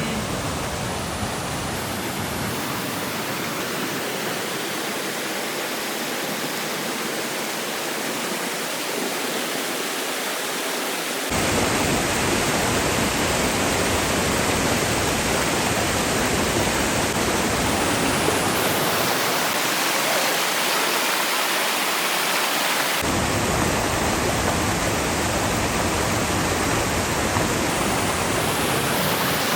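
Steady rush of flowing river or stream water, an even hiss with no distinct splashes. About a third of the way in it jumps louder and fuller in the low end, and it shifts again about three quarters through.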